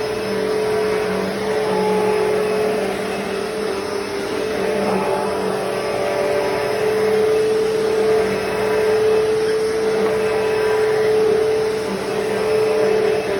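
Hoover Deluxe Elite Rewind upright vacuum cleaner running: a steady motor hum over a rush of air, its loudness swelling and easing slightly.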